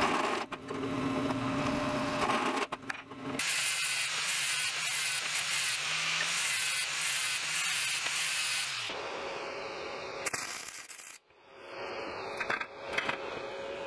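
Drill press running a step drill bit through the wall of a steel square tube, the motor humming under the cutting, for about the first three seconds. Then a loud, steady, rough hiss for about five seconds, followed by quieter scraping and clicks.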